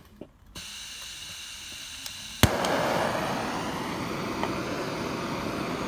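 Handheld gas torch being lit: the gas starts hissing about half a second in, catches with one sharp pop about two and a half seconds in, then burns with a steady rushing flame.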